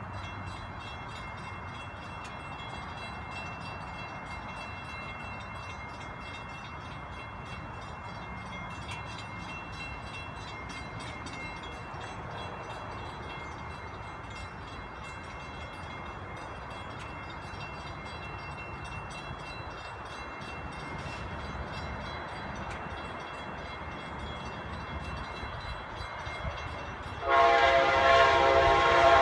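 Steady background noise, then near the end a loud, long blast of an Amtrak diesel locomotive's horn, a chord of several pitches, as the Vermonter approaches.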